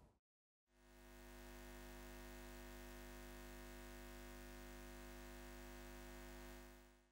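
A faint, steady electric hum made of many fixed tones, fading in just under a second in, holding level and fading out near the end.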